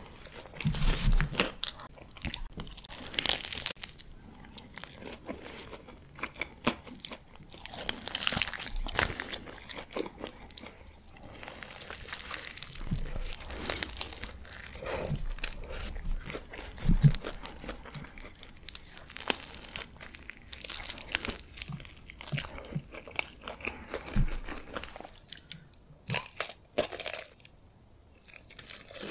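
Close-miked eating: crunchy bites into burritos with crisp tortilla shells, with wet chewing and crackles in between. After a quieter stretch near the end comes another crunchy bite, this time into a breaded corn dog.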